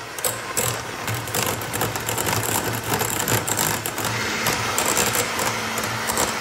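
Electric hand mixer running steadily, its wire beaters whipping softened butter in a stainless steel bowl and rattling against the sides.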